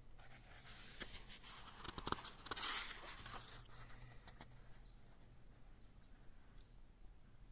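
Paper rustling with a few light clicks as a book page is turned by hand, loudest in one soft swish about two and a half seconds in.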